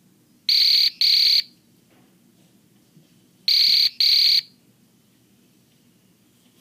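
Old BEL radar/laser detector sounding its alert, which signals that it is picking up a TSS signal: two pairs of loud, short, high-pitched beeps, the second pair about three seconds after the first.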